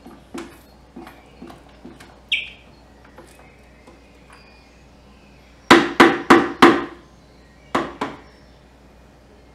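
Silicone spatula scraping and knocking against the inside of a plastic food processor bowl full of thick dip. There are a few light scrapes and taps at first, then a quick run of four sharp knocks about halfway through, and two more near the end.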